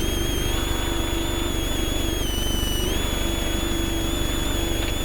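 Class 7 off-road race truck running over desert terrain, heard from inside the cab: a steady low rumble with a high whine that drops in pitch briefly midway and then comes back up.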